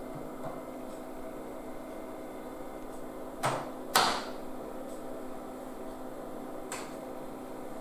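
Steady hum of an old 486 desktop PC's fan and power supply, with a few computer keyboard keystrokes. Two sharp clicks about three and a half and four seconds in are the loudest, and a few fainter ones fall elsewhere.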